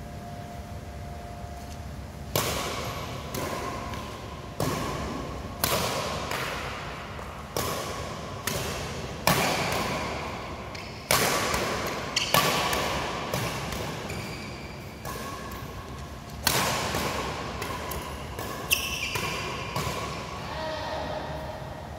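Badminton rackets striking a shuttlecock back and forth in a rally, about one sharp hit a second, each hit echoing in the large hall. The rally starts about two seconds in and ends shortly before the close.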